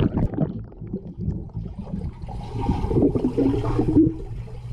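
Muffled underwater sound from a camera submerged in a swimming pool: a low rumble of moving water, with bubbly gurgling in the middle.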